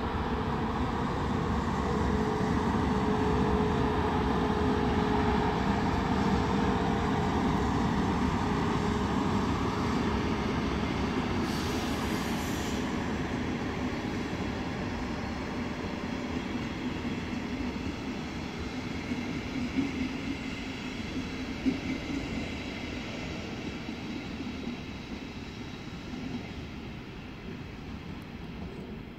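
DB class 111 electric locomotive and double-deck coaches passing on the track, with a steady wheel-and-rail rumble that slowly fades as the train moves away. A short hiss comes about twelve seconds in, and a single sharp click near the end.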